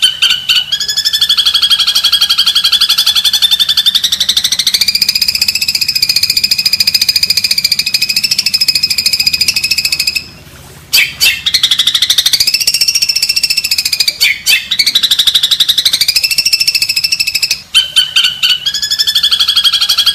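Recorded songbird masteran for tutoring long-tailed shrikes: long, very rapid rattling trills held for several seconds at a time, gently rising and falling in pitch. About ten seconds in the trill breaks off briefly, and bursts of short chattering notes come between the trills.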